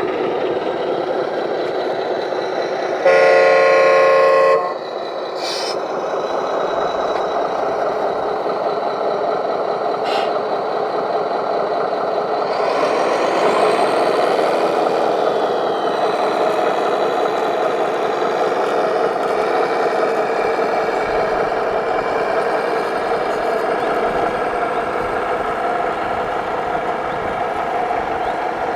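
Radio-controlled heavy truck running steadily, with one horn blast about three seconds in lasting about a second and a half.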